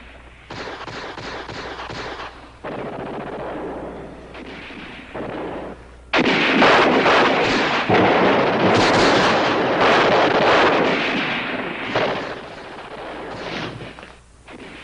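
Dense battle gunfire from the war drama's soundtrack. It is moderate at first, jumps much louder about six seconds in, and eases off after about twelve seconds.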